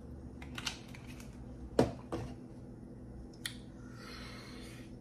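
A person drinking from a plastic water bottle: small clicks and swallows, then a sharp knock a little under two seconds in. A soft breath out follows near the end.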